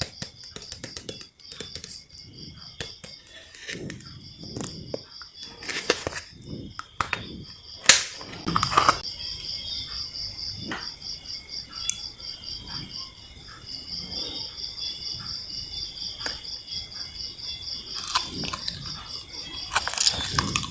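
Steady, rapidly pulsing high chirping of insects, with scattered clicks and knocks from handling the jelly candies. The loudest knocks come about six, eight and nine seconds in and near the end.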